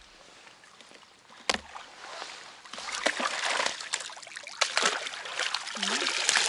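Water splashing and sloshing as a caught bream is put into a keepnet and thrashes in the river, after a single sharp knock about a second and a half in.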